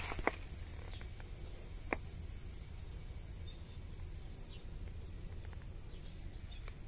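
Faint outdoor background with a steady high-pitched drone and a few soft clicks, the clearest about two seconds in.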